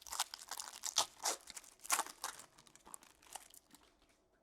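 Plastic wrapping crinkling and crackling as it is handled and torn open, a quick irregular run of crackles that dies away shortly before the end.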